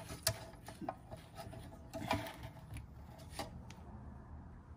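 Plastic radio dash-kit frame and mounting brackets being handled on a workbench: light rubbing and scraping with a few sharp clicks and knocks, the clearest a fraction of a second in, about two seconds in and near three and a half seconds.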